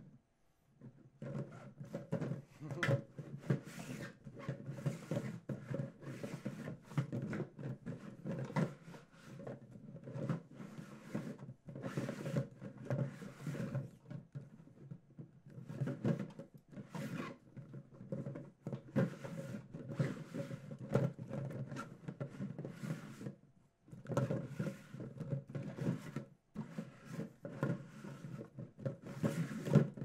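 Giant 3D-printed PLA 2x2 Rubik's cube being turned quickly through a solve. Its large plastic pieces rub, scrape and knock together in irregular runs, with short pauses twice near the end.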